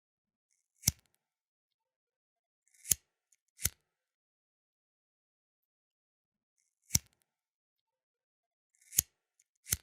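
Flint lighter being worked: six sharp clicks in two matching sets of three, the middle click of each set led in by a brief scrape.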